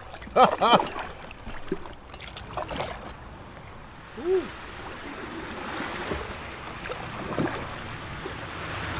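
Kayak paddle strokes and water washing against an inflatable kayak, a steady splashing hiss that grows louder over the second half. A couple of brief vocal sounds come in about half a second in, and a single short tone about four seconds in.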